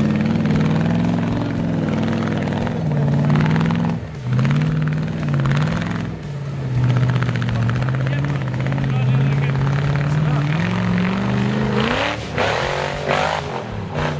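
Electric motor and gearbox of a toy RC crawler car whirring, its pitch dropping and rising as the throttle changes. A voice is heard briefly near the end.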